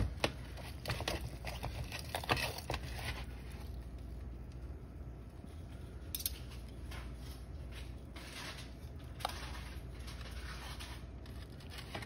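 A knife cutting through barbecued pork baby back ribs, with short scrapes and clicks of the blade against the lined sheet pan. The strokes come quickly for the first three seconds, then thin out to a few single clicks and soft scrapes.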